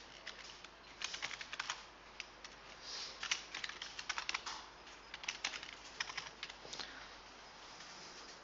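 Computer keyboard typing: irregular runs of quick key clicks, fairly faint.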